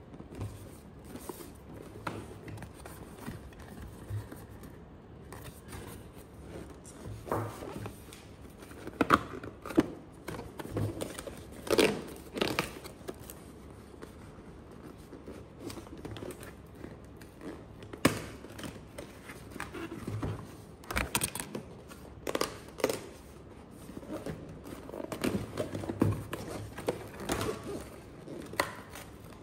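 Cardboard blind-box case and its boxes being handled: irregular rustling and scraping of paperboard, with sharper taps and knocks now and then.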